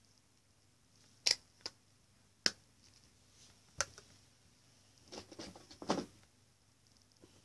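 Handling noise: four sharp clicks in the first four seconds, then about a second of rustling and scraping.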